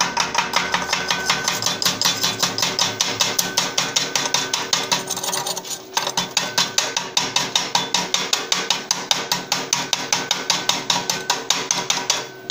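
Welder's chipping hammer tapping rapidly on a fresh stick-weld bead on 14-gauge steel tubing, knocking off the slag to expose the bead: sharp metallic taps several times a second, with a brief pause about halfway.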